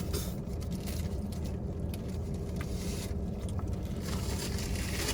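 Steady low background rumble with on-and-off crackling rustles, of the kind made by handling a paper-wrapped fried chicken sandwich and eating it.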